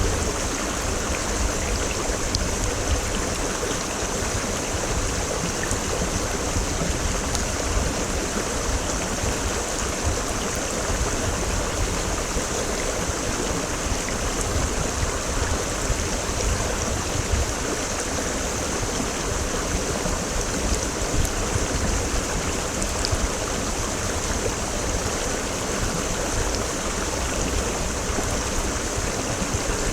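Mountain stream running over rocks: a steady, unbroken rush of flowing water with fine splashing.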